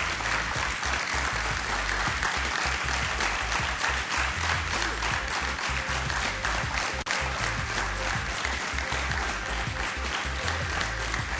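Studio audience clapping steadily over music.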